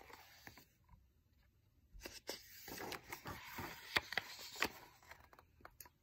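A picture book's paper pages being turned and handled: a soft rustle with a few sharp clicks, starting about two seconds in and lasting about three seconds.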